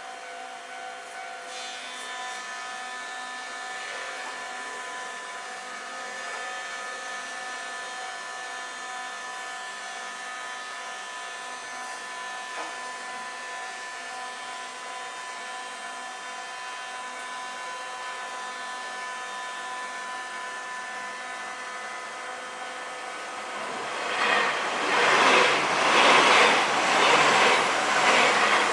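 Level-crossing warning bell ringing steadily. About 24 seconds in, an electric train of the Keio Inokashira Line passes through the crossing: a loud rising rumble of wheels on rail with a rhythmic clatter about once a second.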